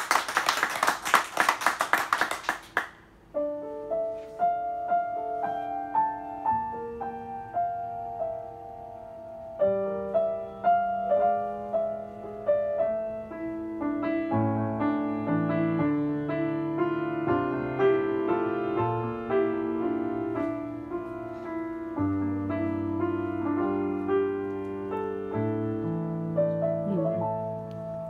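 Applause for about the first three seconds, then a Schimmel grand piano alone playing a slow introduction of held chords and melody notes. The piano grows fuller and louder about ten seconds in.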